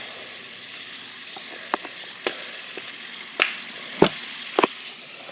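Steady hiss with five or six short, sharp clicks and taps scattered through it, the loudest about four seconds in.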